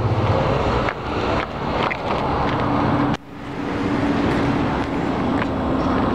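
Outdoor heat pump condenser units running: a steady fan and hum noise with a few handling clicks. The sound drops out suddenly about three seconds in, then returns with a steady humming tone.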